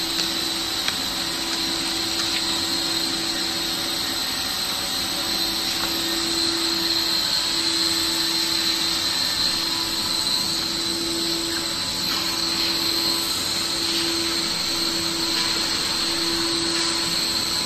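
CNC router running, cutting aluminium composite panel: a steady high spindle whine over a hiss of cutting noise, with a lower hum that swells and fades every second or two.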